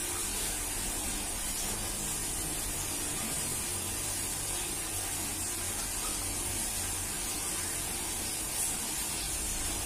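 A steady, even hiss with no distinct events; the ladled broth makes no separately audible splash.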